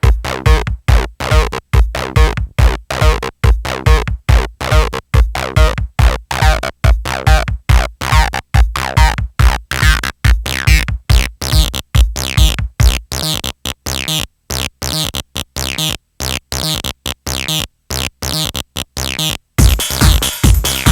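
Live techno played on hardware drum machines, samplers and synthesizers: a steady kick drum about twice a second under choppy, sharply gated synth and sample stabs. About nineteen seconds in, a dense layer of hi-hats and noise joins.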